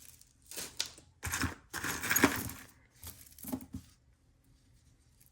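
Costume jewelry clinking and rattling as pieces are picked through and set down, in several short bursts, the loudest about two seconds in.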